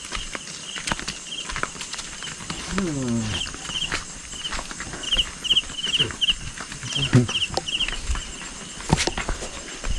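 Footsteps scuffing along a rocky dirt path, over a high, pulsed chirping that repeats about twice a second. A short falling vocal sound comes about three seconds in.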